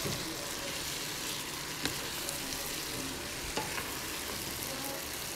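Boiled chickpeas sizzling in hot oil and masala in a pan as they are stirred with a wooden spatula: a steady frying hiss, with a couple of light knocks about two and three and a half seconds in.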